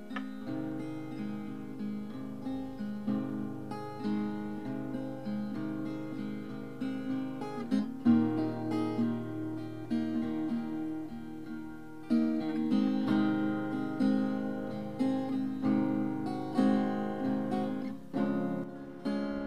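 Background music played on acoustic guitar.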